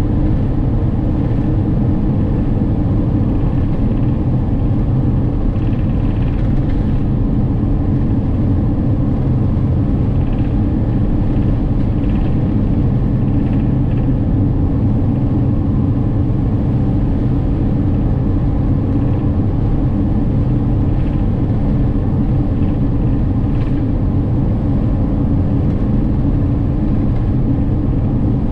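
Steady drone of a camper van cruising at constant speed on a sealed road, heard from inside the cabin: engine, tyre and wind noise, unchanging throughout.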